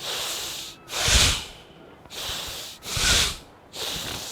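A man doing a forceful yogic breathing exercise: long inhales alternate with sharp, louder exhales, twice, about a second and three seconds in.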